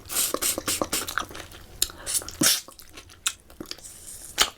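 Close-miked chewing of a big mouthful of pork curry, with irregular mouth clicks and smacks.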